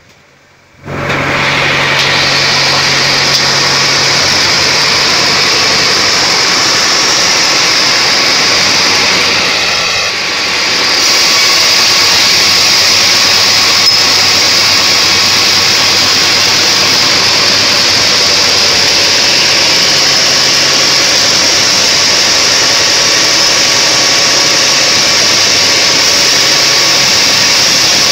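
Homemade band sawmill cutting a mahogany log lengthwise into boards: the running blade gives a loud, steady, high-pitched hiss as it saws through the wood. It comes in suddenly about a second in and dips briefly about ten seconds in.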